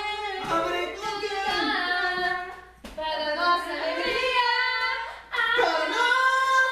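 A small group of men and women singing together in long held notes, with two short breaks between phrases, about three and five seconds in.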